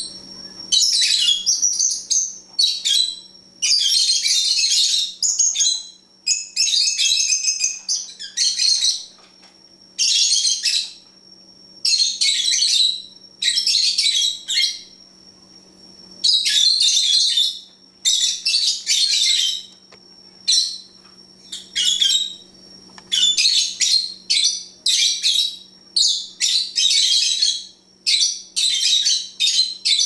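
Pet lovebirds chirping in a busy run of high-pitched bursts, each about a second long, one after another with short gaps. A faint steady hum runs underneath.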